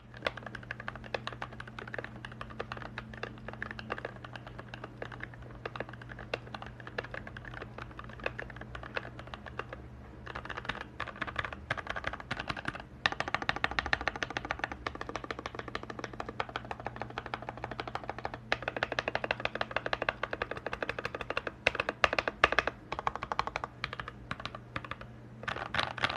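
Typing on a stock Keychron K8 mechanical keyboard with Gateron Red linear switches: a steady stream of keystroke clacks that gets faster and denser from about ten seconds in, over a constant low hum.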